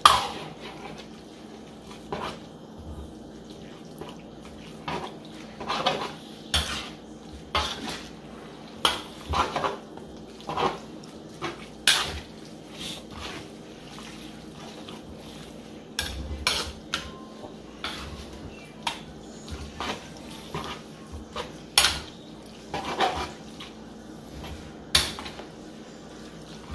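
Metal ladle clinking and scraping against a metal wok while stirring noodles in broth: irregular knocks, sometimes one or two a second, with the loudest right at the start and another sharp one about 22 seconds in.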